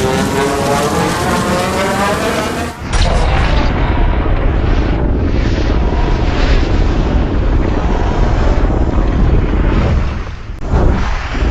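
Godzilla sound effects: the end of a long, pitched, wavering Godzilla roar, then, about three seconds in, an abrupt switch to a loud, deep rumbling blast of noise that swells again and again, dipping briefly and surging once more near the end.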